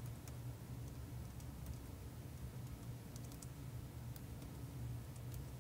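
Faint, irregular light clicks over a steady low hum.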